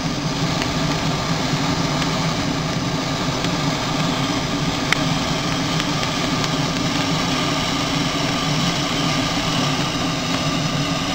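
Handheld gas torch burning with a steady, loud hiss while its flame is held into lump charcoal to light it, with one sharp click about five seconds in. The hiss cuts off suddenly at the very end as the torch is shut off.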